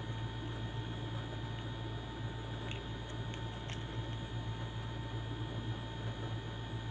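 Steady low electrical hum, with three faint light clicks about three to four seconds in as clay beads are picked from a plastic bead organizer box and threaded onto a needle.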